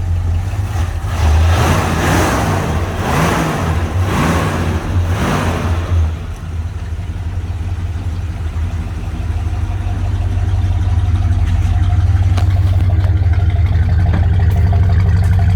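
1968 Ford Galaxie engine running after restoration, revved about four times in quick succession, then settling into a steady idle.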